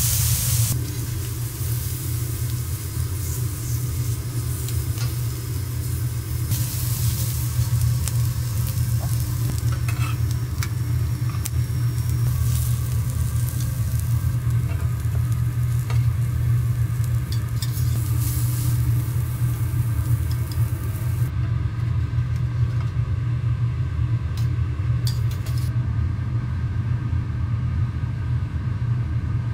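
Food sizzling on a hot teppanyaki iron griddle over a steady low hum. The sizzle dies down about two-thirds of the way through, leaving the hum and a few light clicks.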